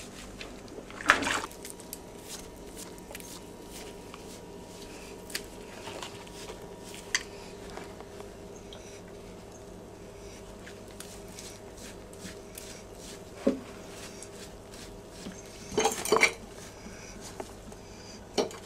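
Occasional sharp clinks and knocks of things at a kitchen sink, the loudest about a second in and a cluster near the end, over a steady hum.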